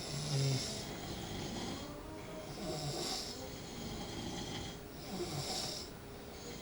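Snoring in a slow rhythm: three breaths about two and a half seconds apart, each with a hissing rasp.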